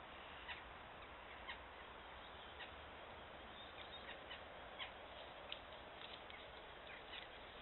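Faint game-camera recording: a steady hiss from the camera's microphone, with about a dozen short, sharp calls and pecks from jackdaws on the wooden perch.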